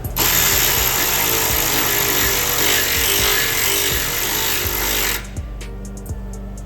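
Air-powered shop tool, most like an impact wrench, running in one continuous burst of about five seconds with a loud hiss and a fast hammering underneath, then cutting off suddenly.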